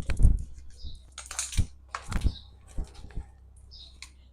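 A series of irregular sharp clicks and light knocks, about five in a few seconds, the loudest just after the start, over a faint steady low hum.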